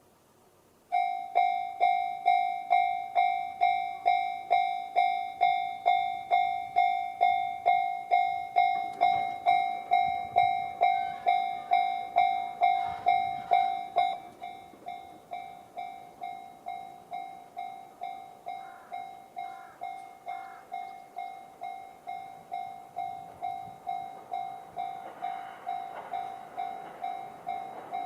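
Japanese railway level-crossing alarm sounding the JR standard electronic bell tone, a repeated ding at about two and a half strokes a second, starting about a second in to warn of an approaching train. About halfway through the bell drops to a lower volume and carries on, and near the end the noise of the approaching train rises beneath it.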